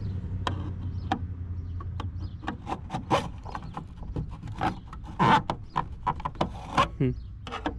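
Metal screwdriver clicking and scraping against the plastic tail light housing of a 2015–2020 Hyundai Tucson as it pries the light's clips loose: many sharp, uneven clicks and short scrapes. Under it, a low steady hum fades out in the first couple of seconds.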